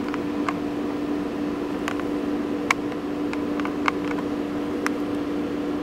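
A steady hum with an even hiss, and about six small sharp clicks scattered through it.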